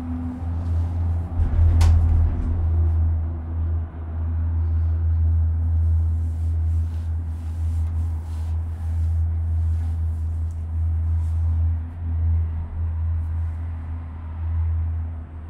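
Steady low rumble inside a moving Skyliner gondola cabin, with a sharp click about two seconds in.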